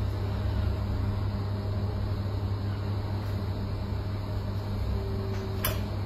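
A steady low mechanical hum, with a single sharp click near the end.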